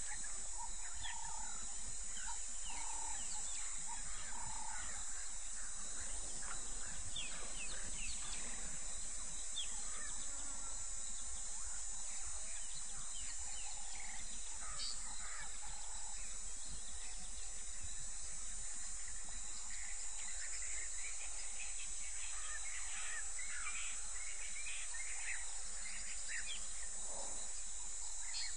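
Bush ambience: many short bird calls and chirps, scattered throughout, over a steady high hiss and a low hum.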